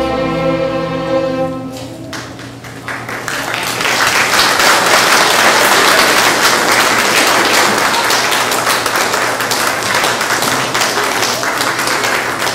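Youth string orchestra of violins, cellos and basses holding the last chord of a symphony finale, which dies away about two seconds in. Audience applause then rises and stays steady to the end.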